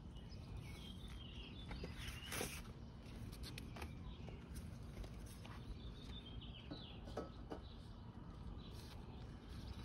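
Quiet background with a low steady hum and faint bird chirps, and a few light clicks and taps as the exhaust muffler is handled and slid onto the head pipe.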